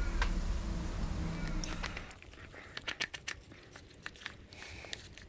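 A stirring stick clicking and scraping against a plastic cup while polyester resin, Q-cell filler and hardener are mixed. A low rumble fills the first two seconds, then comes a quick run of sharp clicks.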